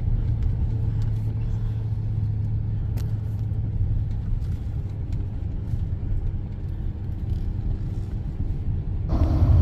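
Steady low rumble inside the cab of a 2024 GMC Duramax diesel pickup cruising slowly on a wet road, from engine and tyre noise, with a few faint ticks.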